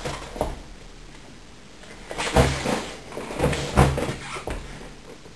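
A few short knocks and clatters of things being handled and set down, spread through a small room's quiet.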